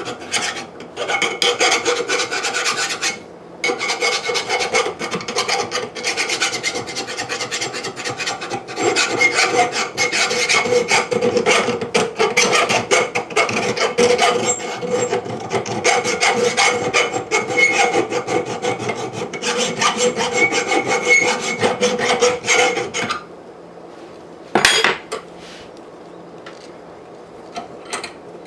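Grinder grinding down the sharp edges of a steel anvil: a continuous, loud grinding noise with a couple of brief breaks, which stops near the end. A single sharp metallic knock follows about a second and a half later.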